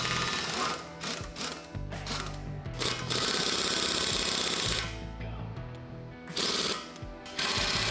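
Impact wrench hammering at the bolts of a rusted armour hull plate to undo them, in several short bursts and one longer run of about a second and a half near the middle. Background music plays underneath.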